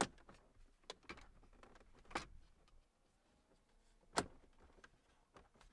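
Plastic clips of an aftermarket 14.4-inch display surround snapping into a Ford F-150 dash as it is pressed into place: a few sharp clicks, the loudest about four seconds in.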